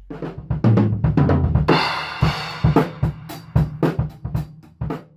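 Drum kit playing a fast fill of snare, tom and bass drum hits, with a cymbal crash a little under two seconds in, followed by a run of single hits about three a second that thin out near the end.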